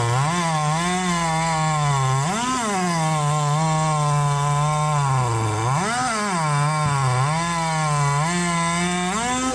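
Chainsaw running at full throttle, cutting through a log in a race heat. The engine pitch sags as the chain bites into the wood and climbs again as it frees up, several times over.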